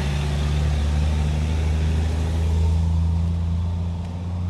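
A road vehicle's engine running steadily, a low hum with the higher hiss easing off about three seconds in.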